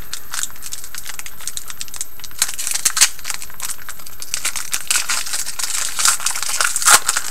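Foil wrapper of a hockey card pack being torn open and crinkled by hand, a dense run of sharp crackles with a few louder crinkles.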